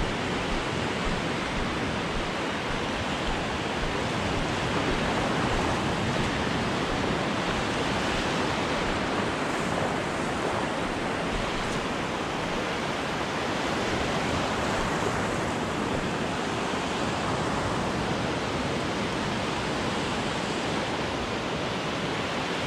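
Steady wash of surf breaking and running up a sandy beach.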